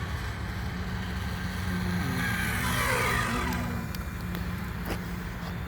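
Brushless electric motor and drivetrain of a Kyosho Fazer Mk2 1:10 RC car whining as it speeds past, the pitch dropping as it goes by, over a steady low background hum. A single sharp click near the end.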